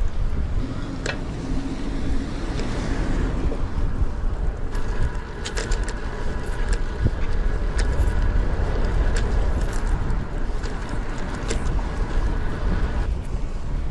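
Wind and road noise from riding a road bike over pavement, with a few light clicks; a steady whine joins about five seconds in and stops near the end.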